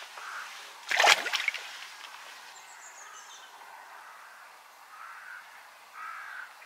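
A bream released back into the lake, hitting the water with a single splash about a second in.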